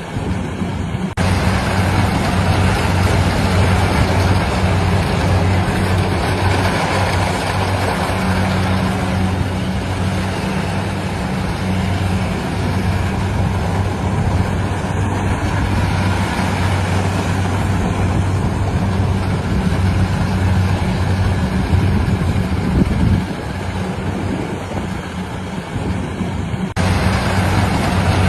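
Engine of a rice harvesting machine running steadily, with a low hum under a dense mechanical rush. The sound changes abruptly about a second in and again near the end.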